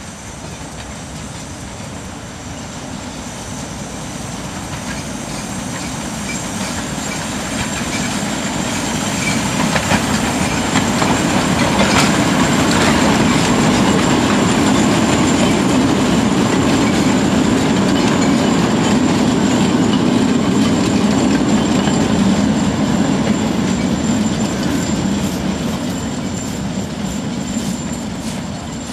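Small narrow-gauge steam locomotive hauling a train of open coaches past. It grows louder over the first ten seconds, stays loud for about twelve seconds as the engine and coaches go by, then fades.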